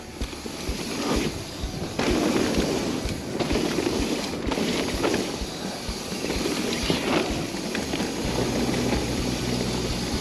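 Mountain bike rolling fast down a dirt trail: tyre noise on dirt and wind rushing over the camera microphone, with scattered knocks and rattles from the bike.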